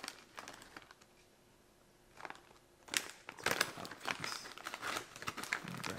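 Plastic jerky bag crinkling as it is handled: a few short crackles at first, a quiet pause, then dense irregular crinkling from about three seconds in.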